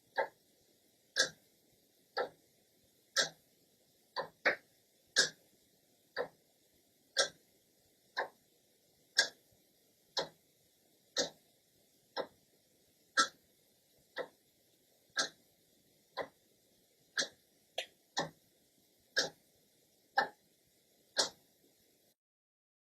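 Clock second hand ticking about once a second, dry and close, with a few ticks coming in quick pairs; the ticking cuts off into silence near the end.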